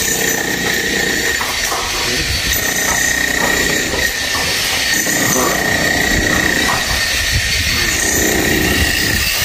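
A power tool runs on sheet-metal roof flashing with a steady high whine over a noisy rasp.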